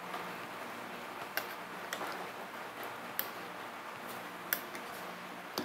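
A few scattered light clicks of a steel spoon against a ceramic bowl while marinade is spooned over raw chicken breasts, over a faint steady hum.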